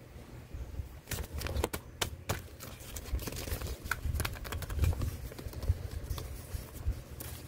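A folded paper envelope being handled and pried open: irregular crackling and crinkling of paper from about a second in, with soft knocks of the hands.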